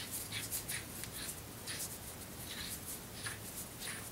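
Irregular scratching and rubbing of hands on the metal workpiece in a stopped lathe chuck, as chips are cleaned out of a freshly cut internal thread.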